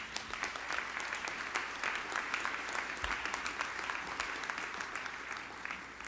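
Audience applauding, a dense patter of many hand claps that eases off slightly near the end.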